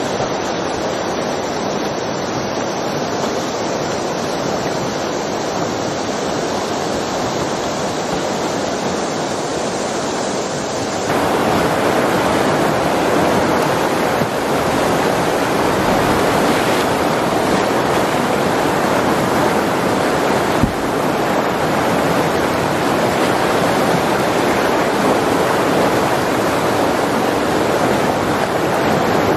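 Whitewater rapid rushing steadily, getting louder about eleven seconds in.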